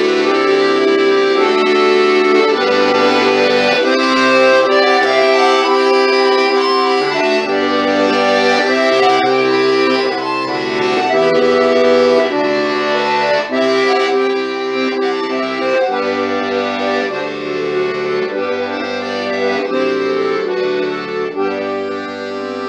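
A piano accordion and a button accordion playing a traditional-style tune together, with held reed chords over changing bass notes.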